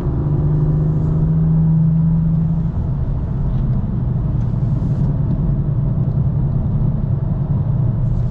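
BMW M2 F87's turbocharged straight-six running at steady part-throttle revs, heard from inside the car, with road and tyre rumble underneath. About two and a half seconds in, the engine note drops a little as the throttle eases, and the car cruises on at lighter load, as on an easy cool-down lap.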